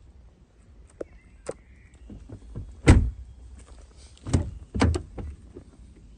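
Audi A4 Avant car door shut with a solid thud about three seconds in. A second or so later the front door handle is pulled and the door unlatches and swings open with two clunks.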